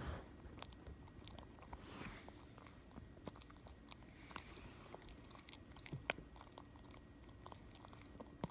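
Boston Terrier puppy grinding his teeth in his sleep: a scatter of sharp, irregular clicks and scrapes, with a few faint snoring breaths.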